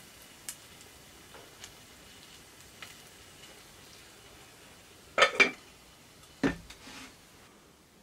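Cooking utensils and cookware being handled while a breakfast sandwich is assembled: a few light clicks, then a loud double clatter about five seconds in and a heavier knock a second later.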